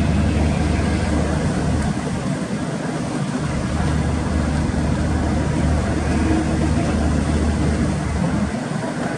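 Steady low drone of the KM Glory Mary passenger ship's engines under way, with an even rush of wind and sea noise over it.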